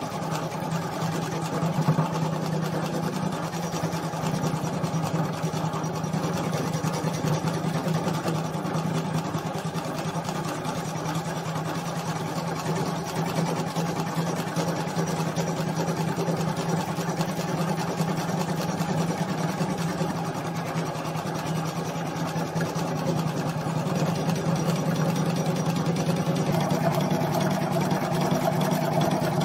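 Usha Janome Memory Craft 450E computerised embroidery machine running steadily, its needle stitching rapidly into T-shirt fabric with a constant motor hum, a little louder near the end.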